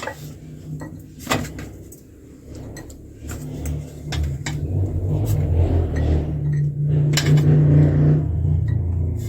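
A few sharp clinks and knocks of jars and kitchenware being handled, over a low rumble that grows louder about halfway through.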